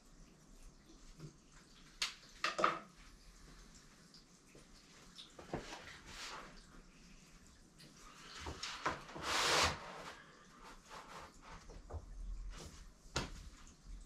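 A long roll of paper being handled: scattered knocks and clicks, then a rustling, sliding sweep of paper about nine seconds in, the loudest sound.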